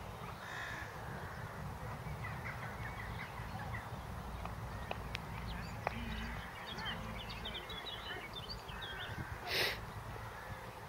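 Several wild birds chirping and singing over a low steady rumble, with a brief loud burst of noise about a second before the end.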